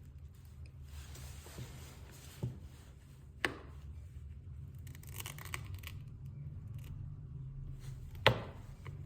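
Small repair tools scraping and clicking against an iPhone XR while its screen adhesive is being worked loose, with short scraping noises and a few sharp clicks, the loudest near the end, over a steady low hum.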